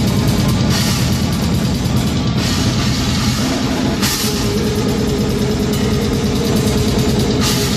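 Live black metal band playing loud and fast: rapid drumming on a full kit with cymbal crashes every second or two, under distorted guitars, picked up by a phone beside the drum riser.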